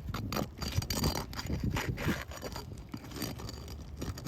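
Wind-damaged asphalt roof shingles being lifted and pried loose: a run of irregular scrapes and short zipper-like rasps. The shingles are worn and shedding granules.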